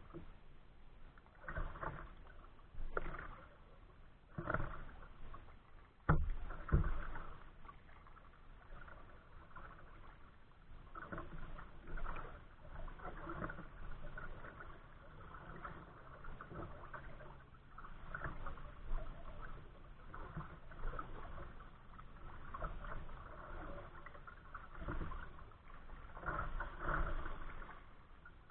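Kayak paddle strokes splashing in choppy water, with waves lapping against the hull in repeated swells. A sharp knock sounds about six seconds in.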